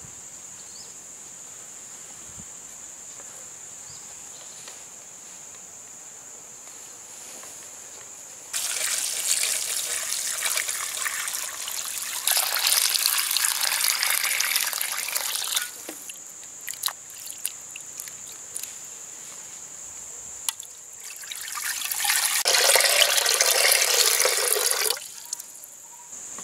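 Water poured over raw prawns in a metal bowl, a loud pour lasting about seven seconds, followed by drips and small splashes and then a second pour of about four seconds. A steady high insect drone is heard while the water is still.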